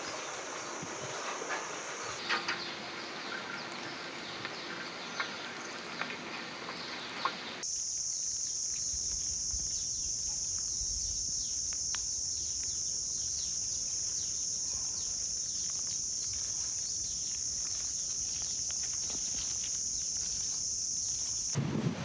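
Tropical outdoor ambience dominated by a steady, high-pitched insect drone, with scattered faint clicks and rustles. The drone jumps abruptly louder about a third of the way in and holds steady.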